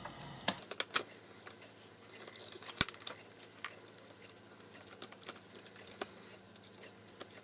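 Light, scattered clicks and taps of fingers working a rubber seal into a small plastic battery box, with one sharper click about three seconds in.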